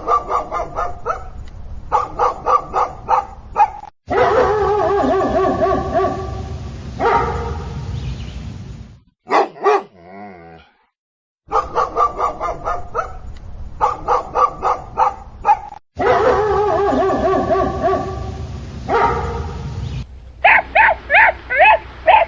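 Dogs barking in quick runs, broken by long, wavering drawn-out cries. The sequence repeats, and near the end come higher, sharper yips.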